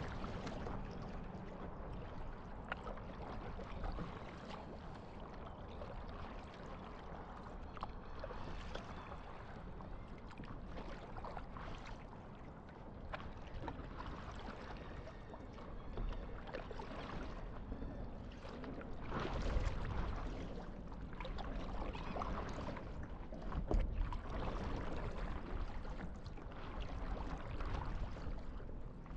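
Water lapping and splashing against a paddleboard at the surface, with louder splashes about twenty and twenty-four seconds in.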